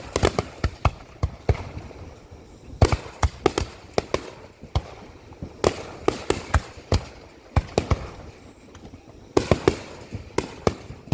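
Aerial firework shells bursting in a finale barrage: many sharp bangs in quick irregular volleys, the heaviest clusters coming about every three seconds.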